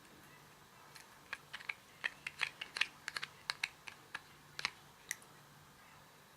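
Slime being worked by hand, giving an irregular run of about twenty small sharp clicks and pops over about four seconds.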